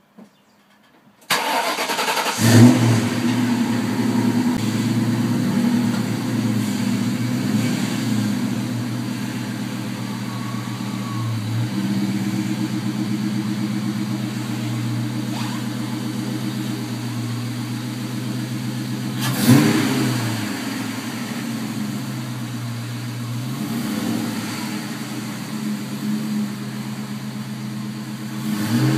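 Ford Mustang GT's V8 engine cranking and catching about two seconds in, with a flare of revs as it fires, then idling steadily. It is blipped briefly about two-thirds through and again near the end.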